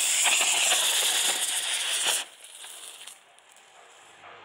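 Firecracker rockets strapped to a fidget spinner firing, a loud steady hiss with some crackle that cuts off suddenly about two seconds in as they burn out, leaving a fainter hiss that fades out about a second later.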